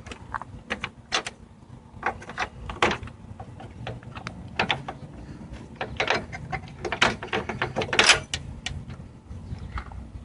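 Irregular clicks, taps and rattles of plastic headlight-assembly parts being handled and fitted, with a busier, louder run of clicks about six to eight seconds in.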